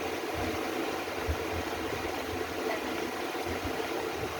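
Steady background hiss with a faint hum and no bird calls.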